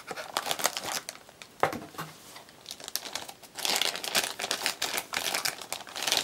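Clear plastic packaging bag crinkling and crackling as it is handled and a small keyboard is slid out of it. It comes in bursts, with a brief lull about two seconds in and the densest, loudest crinkling in the last few seconds.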